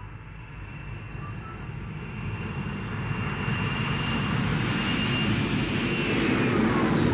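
Jet airliner flying past, its roar growing steadily louder as it approaches, with a high engine whine that drops in pitch near the end as it passes.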